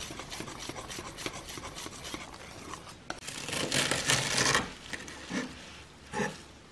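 Kitchen knife slicing through a bunch of garlic chives on a wooden cutting board: one crisp, rasping cut about a second long midway, then two shorter cuts.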